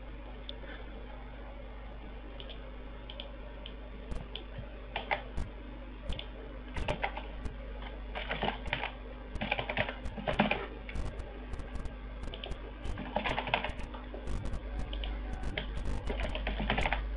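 Typing on a computer keyboard: irregular runs of keystrokes, starting about four seconds in and growing busier toward the end, over a low steady hum.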